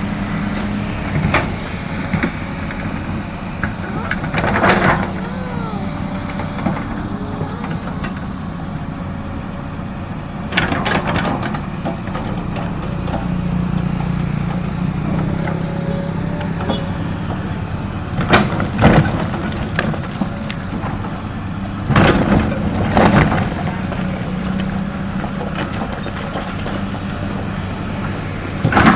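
Komatsu PC200 excavator's diesel engine running steadily, with several short, louder rushes of noise every few seconds.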